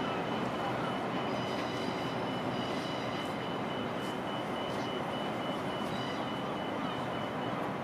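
Steady outdoor city and railway ambience with no nearby train passing. A faint high-pitched tone pulses rapidly over it and stops shortly before the end.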